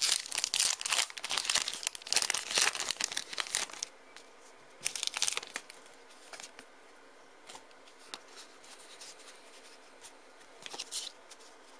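A foil Pokémon booster pack wrapper being torn open and crinkled, loud and dense for about four seconds. Then a short crinkle about five seconds in, quiet rustling and clicks, and another brief crinkle near the end.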